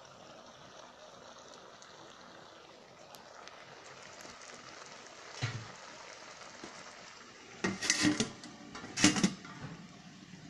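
Faint steady hiss of greens cooking in a metal wok. About five seconds in comes a single knock, then clattering around eight and nine seconds as a metal lid is handled and set on the wok.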